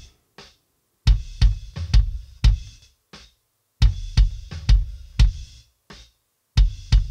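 Rock kick drum track with snare and cymbal bleed, played in an uneven rock pattern through an SSL channel-strip noise gate set at its most aggressive. Each hit's tail is chopped off abruptly, dropping to dead silence between strokes, so the gating sounds obvious and unnatural.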